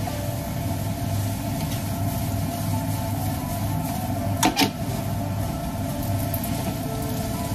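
Spaghetti being stirred and tossed in a deep frying pan with chopsticks and metal tongs over a steady hum, with two sharp knocks of the utensils against the pan about four and a half seconds in.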